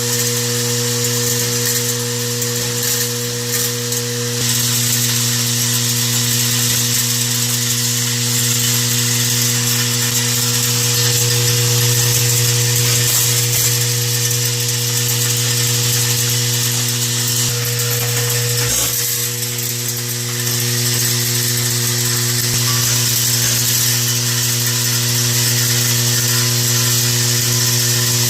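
Vibratory bowl brass sorter running: a steady electric buzz from its vibratory drive, with spent range brass cases rattling and chattering as they feed around the bowl.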